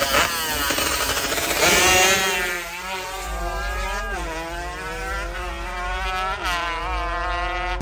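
Two-stroke drag-racing motorcycles revving hard at the start line, then launching about two seconds in. The engine's pitch climbs steadily, dropping back twice as the bike shifts up through the gears while it races away down the strip.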